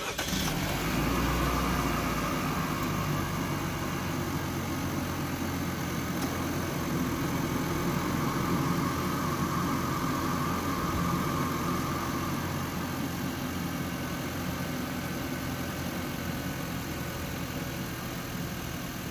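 2020 Chevrolet Equinox's 1.5-litre turbocharged four-cylinder starting up, with a surge in the first second, then idling steadily while the level slowly eases. This is its first start breathing through a K&N drop-in filter in a modified stock airbox.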